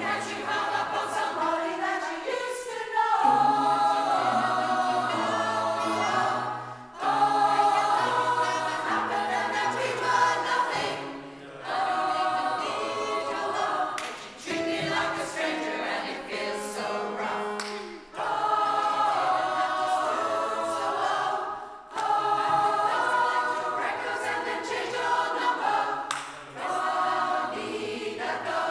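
Mixed choir of men's and women's voices singing together in sustained phrases, with brief breaks between phrases every few seconds.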